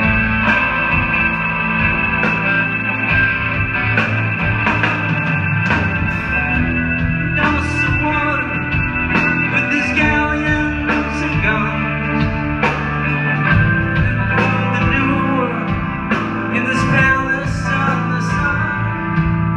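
Live rock band playing: electric guitars, bass, drum kit and keyboard, with steady drum hits, heard from the audience in a hall.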